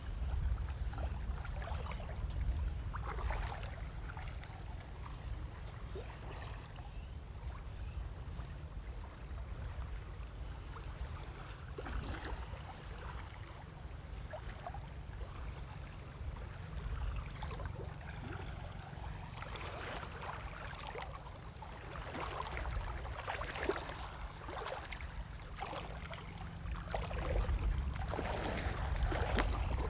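Wind rumbling on the microphone over shallow seawater lapping and splashing around wading legs, the splashing busier in the last several seconds.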